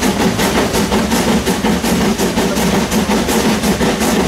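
Krauss steam tram locomotive running under steam, heard from its cab: a rapid, even beat of exhaust chuffs over the steady rumble of the moving engine.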